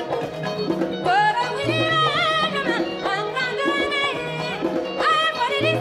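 Live Malian band playing: a woman's lead vocal comes in about a second in and returns near the end, over balafons and guitar playing a repeating figure.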